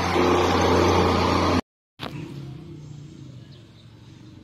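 Diesel passenger train passing close by, its engine running with a loud, steady low hum and wheel and rail noise. It cuts off abruptly about a second and a half in, giving way after a short silence to a much quieter scene with a faint low engine hum.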